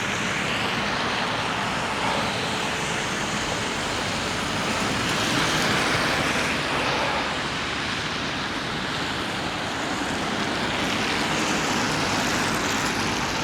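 Steady rushing road noise of an e-bike being ridden on a wet road in drizzle: tyres hissing on the wet tarmac and wind over the microphone, swelling gently a couple of times.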